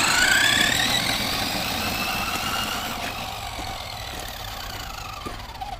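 Traxxas X-Maxx electric RC monster truck accelerating away, its brushless motor and gears whining high and rising in pitch. The whine then slowly falls in pitch and fades as the truck runs off.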